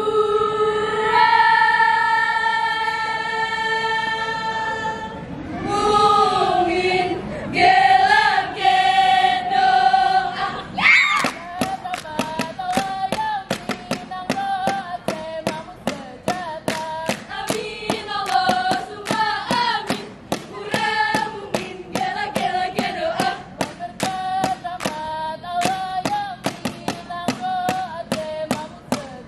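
Saman dance group singing in unison. For about the first ten seconds they hold long notes, then from about eleven seconds in a faster chant runs over a quick, even rhythm of claps and body slaps.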